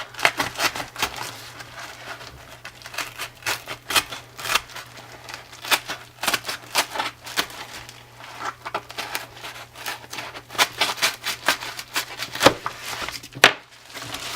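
A mail package being opened and unpacked by hand: a run of irregular crinkles, rips and rustles of packaging, with a faint steady low hum underneath.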